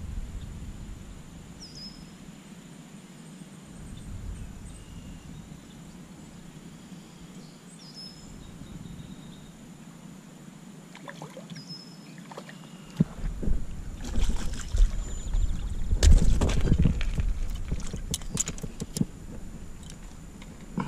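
Quiet creekside ambience with a few faint, short, high chirps while a small crappie is reeled in. About two-thirds of the way through come a low rumble and a run of sharp clattering and crunching on gravel and stones as the fish is landed and handled on the rocky bank.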